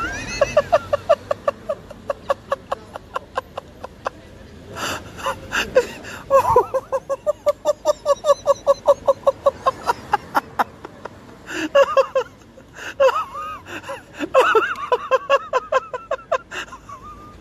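Stifled, wheezing laughter that comes in quick rhythmic pulses, about five a second, in several fits with short breaks between.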